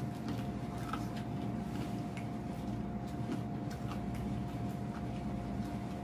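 Steady low electrical hum with a thin constant high tone beneath it, and faint scattered crunches of someone chewing crispy fried chicken.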